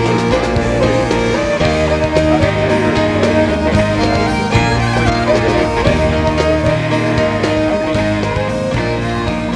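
Instrumental background music with guitar: held bass notes under a melody line that slides between pitches.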